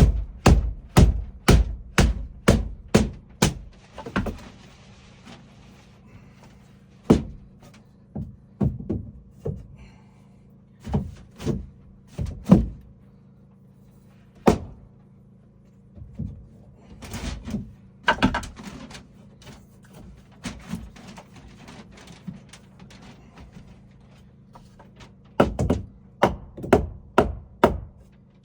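Hammering on wood: runs of quick, sharp blows about two to three a second, with scattered single knocks and short pauses between the runs.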